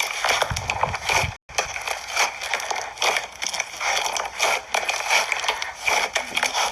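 Slime being squeezed and worked by hand, giving a dense run of small crackles and popping clicks; the sound cuts out for a moment about a second and a half in, then carries on.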